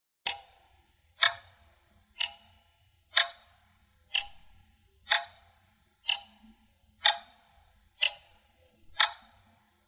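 Clock ticking steadily once a second: ten sharp ticks, each fading quickly, the first a moment after the start.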